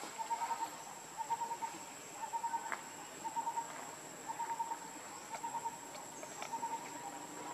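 Insects chirping in short pulsed bursts about once a second, over a steady high-pitched whine.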